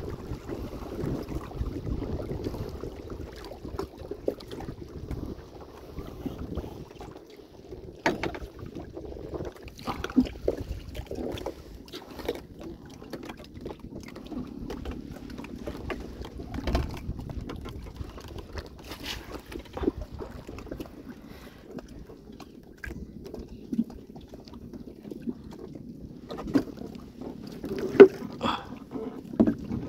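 Water sloshing and splashing, with many scattered short knocks and splashes throughout and a louder splash near the end.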